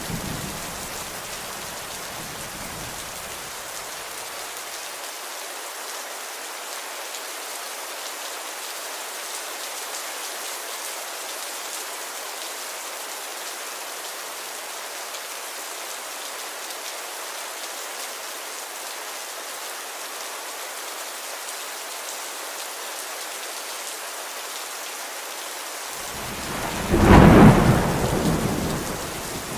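Steady rain falling, with a rumble of thunder fading out over the first few seconds. Near the end a louder roll of thunder swells up and then rolls away.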